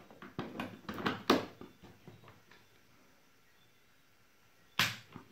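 Sharp clicks and knocks from handling the homemade bench power supply as it is plugged in and switched on. There is a quick run of several clicks in the first second and a half, then one louder knock near the end.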